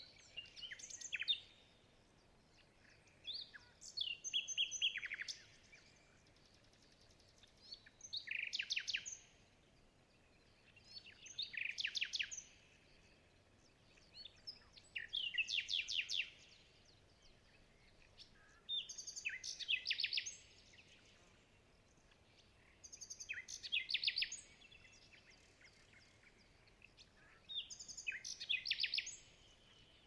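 A songbird singing the same short, rapid trilled phrase over and over, eight times, about every four seconds, over a faint steady hiss.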